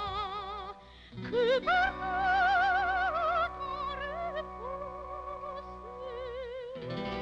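A woman singing in a trained, operatic classical style with wide vibrato, to instrumental accompaniment. After a short break about a second in, she comes back in and holds a loud high note.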